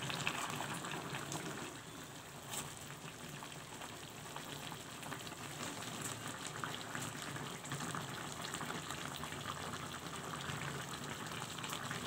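Chicken pieces simmering in reduced spiced broth in a wok, bubbling and crackling steadily as the liquid boils down, with a metal spatula turning the pieces now and then.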